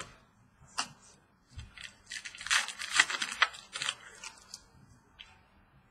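Crinkly rustling and tearing of trading-card packaging as cards are handled, with a sharp click just under a second in and a dense crackling stretch in the middle.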